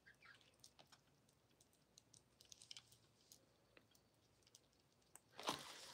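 Near silence broken by faint, scattered small clicks and taps of jewelry being handled, with a louder brief rustle near the end.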